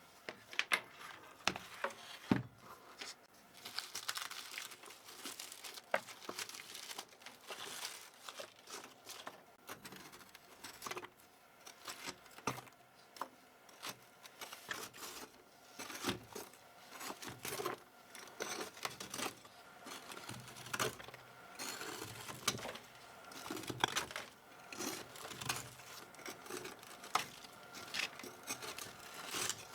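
Irregular close-up clicks and crinkly rustling from a keyboard being handled and cleaned.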